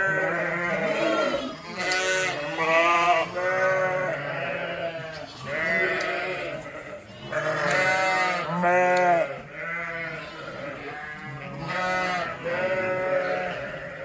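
A flock of ewes and lambs bleating, many high and low calls overlapping one after another.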